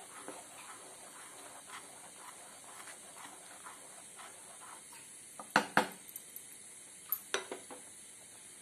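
A spatula stirring rice simmering in whey in a nonstick kadai, with soft scrapes against the pan. Then come a few sharp clacks of the spatula on the pan: two about five and a half seconds in and more just after seven seconds.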